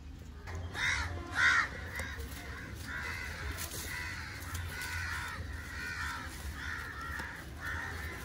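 A crow cawing: two loud caws about a second in, then a run of quieter caws repeating about every two-thirds of a second.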